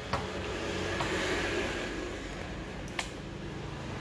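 Sharp clicks of handling noise as multimeter test probes are placed on an inverter welder's circuit board: two clicks about three seconds apart, with a fainter one between them and a soft hiss, over a steady low hum.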